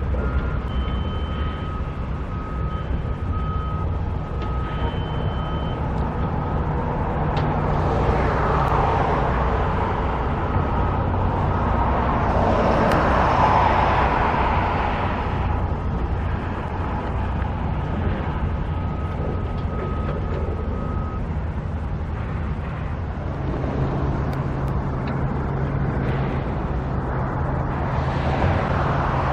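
Vehicles passing by over a steady low engine hum, with a faint beeping tone that comes and goes during the first twenty seconds.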